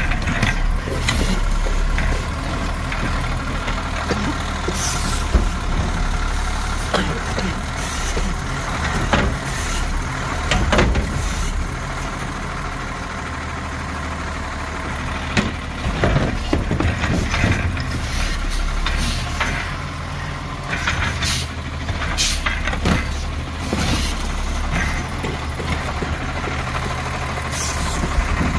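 Garbage truck with its diesel engine running steadily. Short hisses and clanks come again and again over it, with an air brake tag among them.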